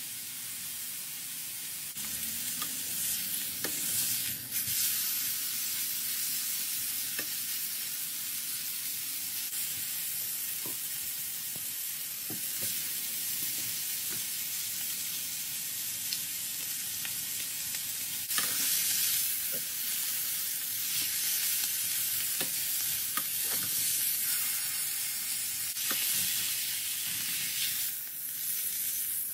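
Beef steak frying in a ridged grill pan with butter: a steady sizzle with scattered pops and crackles, swelling louder several times.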